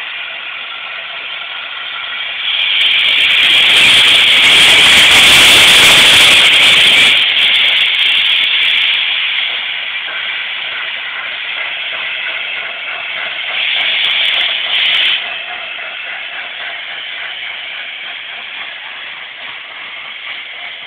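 Gresley A4 Pacific steam locomotive 60009 pulling away, its open cylinder drain cocks hissing loudly as it passes close by, strongest a few seconds in. A second, shorter hiss comes about two thirds of the way through, then the train rolls past more steadily.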